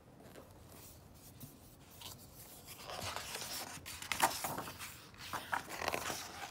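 Pages of a hardcover picture book being turned and handled: paper rustling and sliding against paper, faint at first, then louder from about three seconds in.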